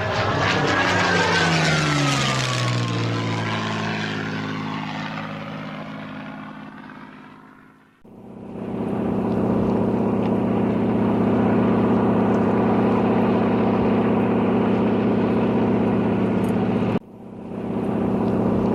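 Single-engine propeller airplane flying past, its engine drone falling in pitch and fading out. Then a steady propeller engine drone, which breaks off briefly near the end.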